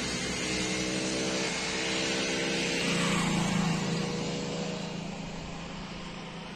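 Kubota ARN105 mini combine harvester running with a steady engine note, growing fainter over the last couple of seconds.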